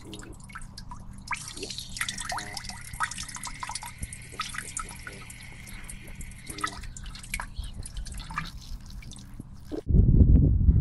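A man urinating in a thin stream onto a glass bottle standing in snow: a steady trickle with many small splashing drips. Near the end it gives way suddenly to a louder low rumble.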